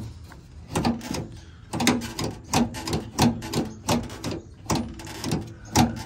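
A string of short clacks and knocks, about seven or eight of them, roughly one a second.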